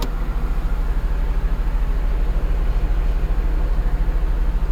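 Stock 1991 Honda Civic Si's D16A6 1.6-litre four-cylinder idling steadily, heard from inside the cabin.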